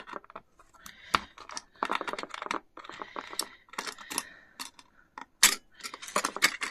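Small metal clicks, taps and scrapes of a precision screwdriver working at a screw in an opened hard drive's head-actuator assembly, metal parts knocking lightly against the drive's case. A sharp click about five and a half seconds in is the loudest.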